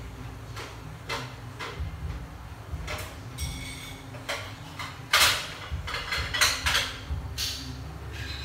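Kitchen items being handled off the stove: a series of separate knocks and clinks, loudest about five seconds in and again a little after six, over a low steady hum.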